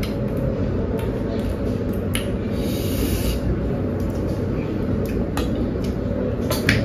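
People eating by hand from steel and ceramic dishes: scattered small clicks and a brief hiss about two and a half seconds in, over a steady low background rumble, with a few clinks of a plate and bowl being handled near the end.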